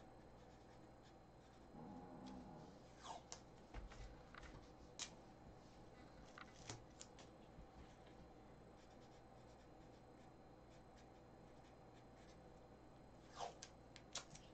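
Near silence: faint room tone with soft scratching and a few light clicks from hands working at a desk, mostly a few seconds in and again near the end.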